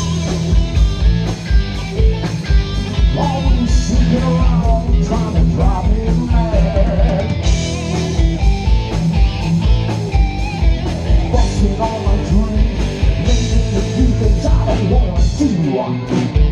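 Live 1980s-style hard rock/heavy metal band playing loudly: distorted electric guitars with bent lead notes over a fast, steady kick drum, and vocals at times. The bass drum drops out briefly near the end.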